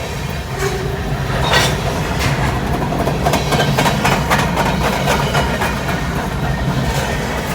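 Train passing close by: a steady, loud rumble with a run of repeated clacks through the middle.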